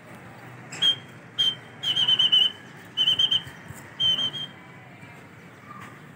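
Five shrill whistle blasts from a pigeon keeper signalling his circling flock. The first two are short, and the later three are longer and trilled.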